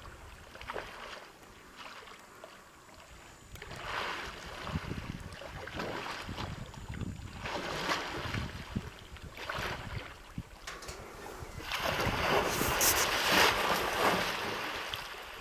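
Adolescent African elephant swimming in a dam: water sloshing and splashing in several short surges, then a bigger, longer splash near the end as it rolls and throws up spray. Wind rumbles on the microphone underneath.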